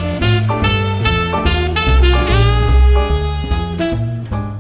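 Instrumental jazz-style intro music: a melody of clear pitched notes over a strong bass line, starting to fade near the end.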